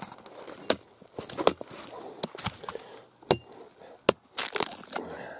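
BeaverCraft AX6 hatchet chopping into an old stump: several sharp wooden chops, about one a second.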